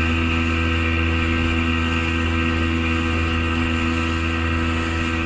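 Mercury outboard motor running at a steady speed, one unchanging engine note, with water rushing past the hull.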